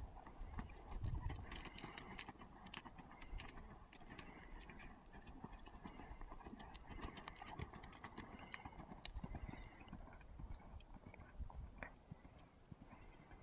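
Horse's hoofbeats as it gallops on a soft dirt arena: irregular dull thuds with scattered sharp clicks, growing fainter near the end.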